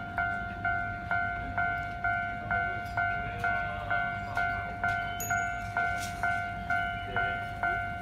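Japanese railway level-crossing warning alarm ringing steadily, a two-tone electronic ding repeated about twice a second, signalling that a train is approaching and the barriers are down.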